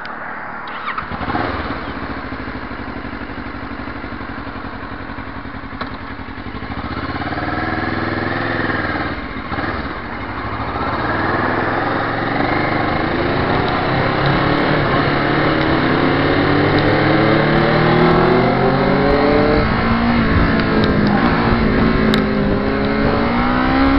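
Motorcycle engine running, then revving. From about eleven seconds in it accelerates, its pitch rising in several successive climbs as it pulls away.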